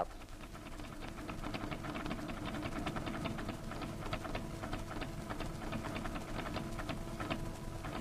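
Tape-printing teleprinter running as a message is typed: a steady motor hum under a fast, even chatter of small mechanical clicks as the characters print onto paper tape.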